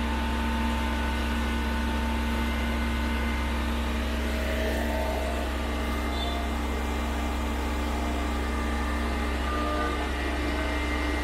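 Truck-mounted mortar pump's engine running steadily: a constant low hum with a few steady tones above it.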